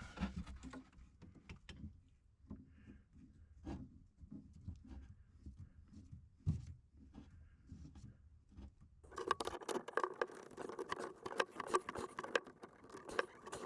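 Light handling clicks, then about nine seconds in a dense, rapid scraping begins: a tool beveling the cut end of a CPVC pipe so it won't cut the O-ring of a push-fit fitting.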